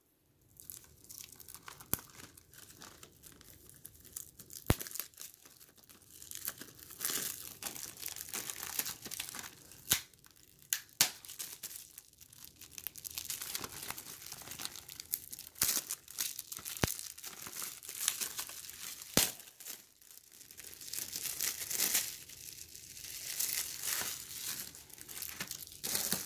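Plastic shrink wrap being torn and peeled off a Blu-ray case by hand: rustling on and off, with occasional sharp clicks.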